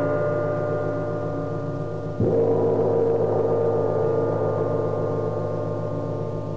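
A gong ringing in the background music. It is struck once about two seconds in, and its many tones ring on and slowly fade.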